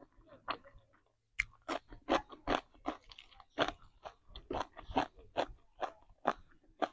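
A person chewing a mouthful of crunchy raw green vegetable close to a clip-on microphone: a run of sharp crunches, two to three a second, starting about a second and a half in.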